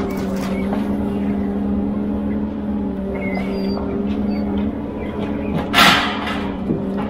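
Ponsse Elephant forwarder's diesel engine running at a steady pitch while its crane works. A short hiss about six seconds in.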